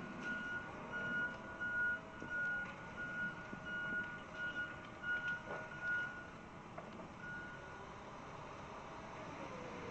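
Backup alarm of a tracked logging machine beeping about twice a second, pausing after about five seconds and giving one last beep near the end, over the steady running of the machine's diesel engine.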